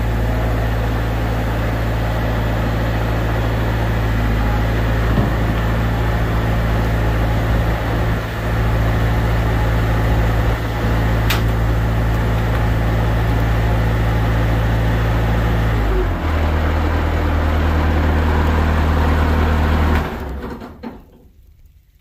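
Diesel skid steer loader engine running steadily, dropping to a lower idle about three-quarters of the way through, then shut off and winding down to quiet about two seconds before the end.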